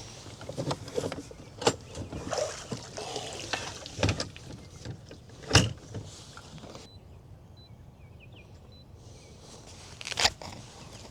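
Scattered knocks, clicks and rustling of gear being handled in a small boat, the loudest knock about five and a half seconds in. It goes quieter for a couple of seconds past the middle, then a final knock near the end.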